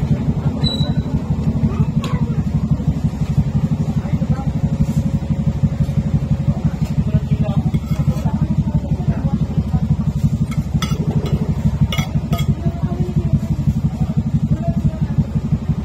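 A steady low motor rumble, pulsing rapidly and evenly, with a few light clinks of a spoon on dishes and faint voices.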